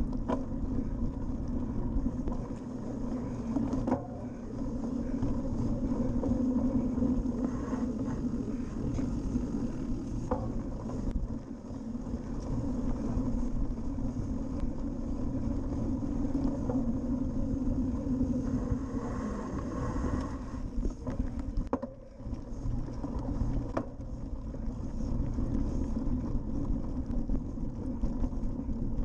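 Cyclocross bike rolling over grass and sand at about 20 km/h, heard from a camera mounted on the bike. The knobby tyres and frame make a steady rumble and rattle, with wind on the microphone and occasional knocks as the bike bounces over bumps.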